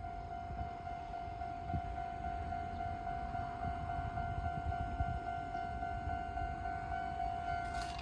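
Japanese railway level-crossing electronic warning bell sounding, a steady high tone, at a crossing whose alarm repeats unusually fast. A low rumble runs underneath, and a brief click comes just before the end.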